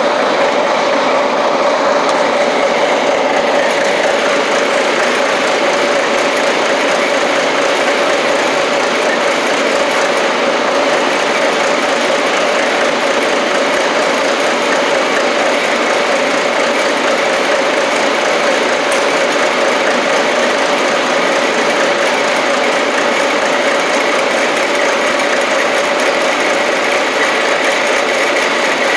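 Case 1845C skid loader's four-cylinder diesel engine idling steadily after a cold start.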